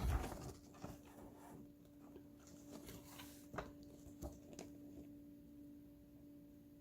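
Faint, scattered clicks and light rustling of plastic model-kit runners being handled, over a steady hum.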